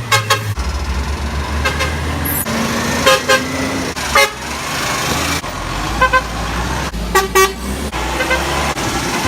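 Trucks sounding their horns in a string of short honks, several brief blasts a second or so apart with a double honk about seven seconds in, over the low rumble of their engines.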